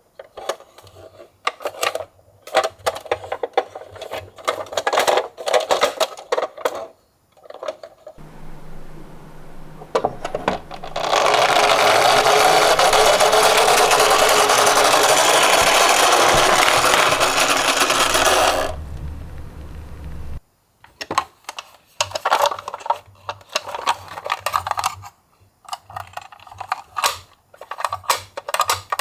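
Die-cast miniature cars clattering and rolling down a slope in quick, irregular metallic clicks and rattles. In the middle, for about seven seconds, a steady rushing noise takes over, ending in a brief low rumble, before the clattering resumes.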